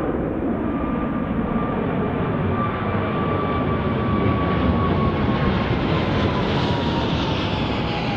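Boeing 777-300ER's twin GE90-115B turbofans at takeoff power as the jet climbs out: a steady loud roar with a fan whine that slowly falls in pitch, growing hissier toward the latter half.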